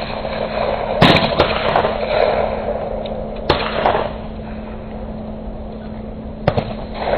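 A shotgun is fired once about a second in, the shot ringing out across the range. Several seconds of sharp metallic clicks follow as the gun is broken open and reloaded with a fresh shell.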